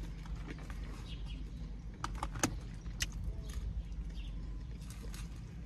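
Chewing salad, with a few sharp clicks of a plastic fork against the food container about two to three seconds in, over a steady low hum inside the car.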